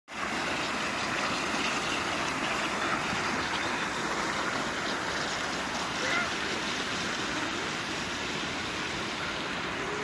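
Outdoor fountain jets splashing into a pool: a steady rushing hiss of falling water.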